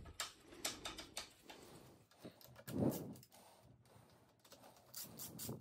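Faint, light metallic clicks and taps of hand tools and bike parts being handled, several in quick succession in the first second and a few more near the end.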